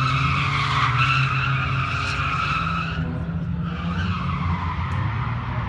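Tyres of a drifting truck squealing in two long slides, the first fading out about three seconds in and the second starting just under a second later, over the steady low sound of its engine.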